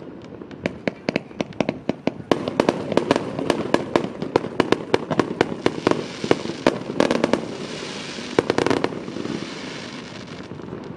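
Aerial fireworks bursting in a rapid barrage: many sharp bangs a second from about two seconds in, mixed with crackling stars, thinning out near the end.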